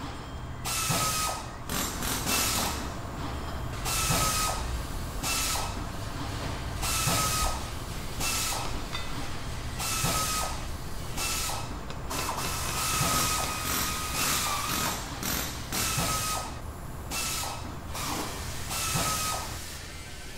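Pneumatic shop air tool run in short bursts every second or so, each a hiss of exhaust air with a brief whine; one longer run comes about two-thirds of the way through.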